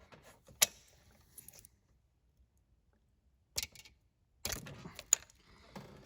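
Sharp metal clicks and rattling from a tool levering at a diesel injector that is stuck tight in the cylinder head, a cable tie looped round it. The loudest click comes about half a second in; after a quiet stretch, more clicking and rattling follows near the end.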